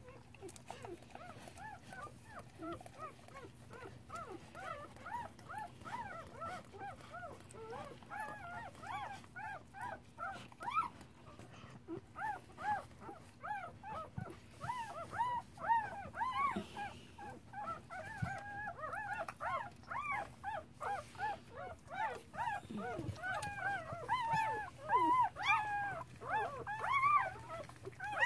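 Newborn standard poodle puppy crying: a rapid string of short, high-pitched squeaks, several a second, growing louder and busier toward the end.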